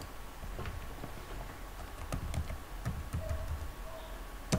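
Typing on a computer keyboard: a handful of separate keystrokes spread through, with a louder click near the end.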